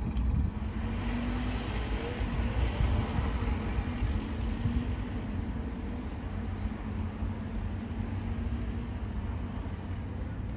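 Road traffic rumble with gusts of wind buffeting the microphone. A faint engine hum comes and goes, and a broad hiss swells a couple of seconds in.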